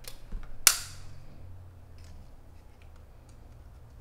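Plastic snaps of HDMI keystone couplers being pressed into a keystone wall plate: a sharp click right at the start and a louder snap under a second in, then faint small ticks of handling.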